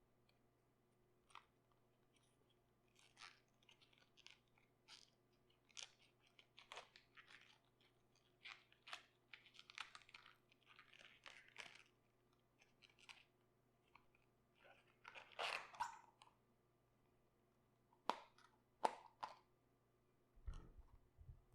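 Crisp, irregular crunching and crackling of raw cabbage leaves being handled and snapped, with a louder crunch about two-thirds of the way in and two sharp snaps near the end.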